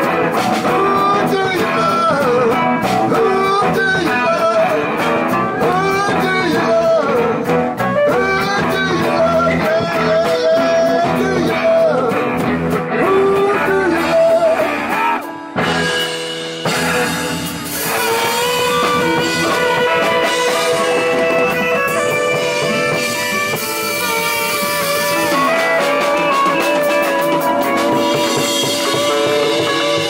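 Live blues band playing, with electric guitar, bass and drums, and a man singing into a microphone over it through the first half. After a brief drop about halfway, the band plays on with long held notes and no singing.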